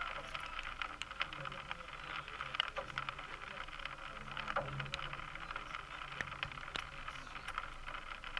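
Steady outdoor background noise with light rustling and many faint scattered clicks, with no single event standing out.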